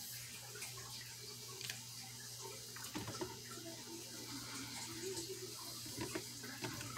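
Water sloshing as a small plastic toy monster truck is dunked into a plastic tub of water, with a few light knocks against the tub about three seconds in and again near the end. A steady low hum runs underneath.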